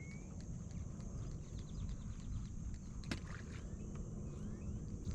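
Low, steady water and wind noise around a kayak on open water, with a thin high steady whine. There are a few faint chirps and small ticks, and one sharp click about three seconds in.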